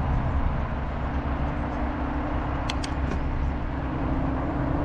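Steady riding noise of a bicycle on a paved trail as heard from a camera on the bike: low wind rumble on the microphone with tyre and road hum. A few brief high chirps or clicks come about three seconds in.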